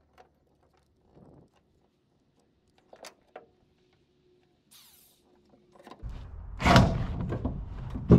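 Near silence, then from about six seconds in a run of loud thuds and knocks over a low rumble. This is plausibly an electric drill whose bit has caught in the pickup's steel bed: it took a big bite and the drill jerks and stalls.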